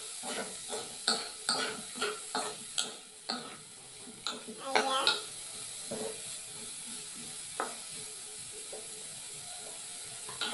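Wooden spatula stirring chopped beef innards in a metal pot, scraping and knocking against the pot in quick irregular strokes for the first five seconds or so, then more quietly, over a faint steady sizzle.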